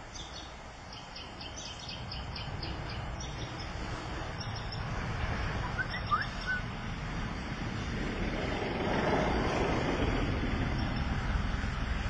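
Birds chirping in short, quickly repeated high notes for the first few seconds. Then a low rumbling noise grows steadily louder, peaking a little past the middle and staying loud.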